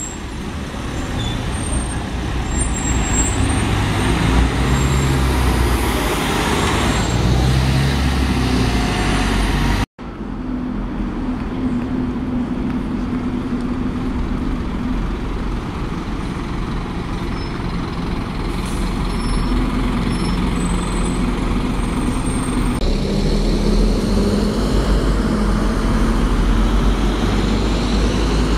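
Town road traffic with diesel buses and cars running and passing. The sound cuts out for an instant about ten seconds in, then a bus engine runs with a steady hum under the traffic.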